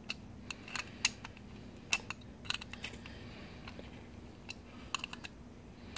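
Sharp, irregular metallic clicks and clinks of a screwdriver working screws into an aluminium motor mounting plate, as the screws are snugged up. The two loudest clicks come about one and two seconds in.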